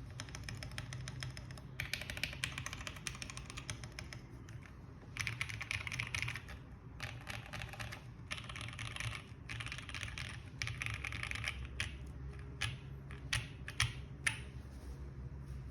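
Typing on a gasket-mounted QK65 mechanical keyboard with lubed Tangerine linear switches on a POM plate and GMK keycaps: fast runs of keystrokes in bursts of a second or two, then a few separate, louder single key presses near the end.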